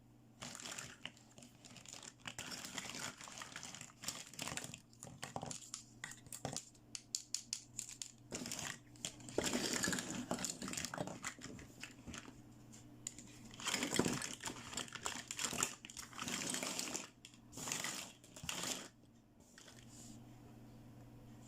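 Packaging crinkling and rustling as a toy playset is unboxed by hand, in irregular bursts with small clicks between them. It stops about two seconds before the end.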